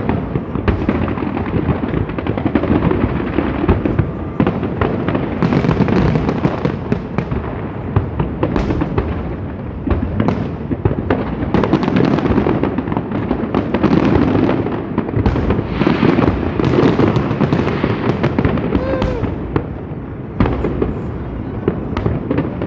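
Fireworks display: a dense, continuous barrage of bangs, pops and crackling.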